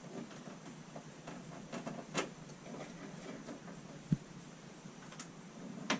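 Faint, irregular scraping and small clicks of hand work on a thin wall panel, with one sharper click about two seconds in and a dull knock a little after four seconds, as the cut-out for an RV wall switch is enlarged.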